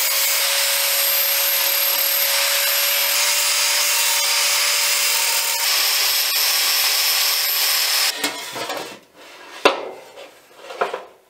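Corded angle grinder grinding the cut edge of a steel motorcycle rear fender, running steadily with a steady whine while it shapes the corner. It cuts off about eight seconds in, followed by a couple of knocks as the fender and tool are handled.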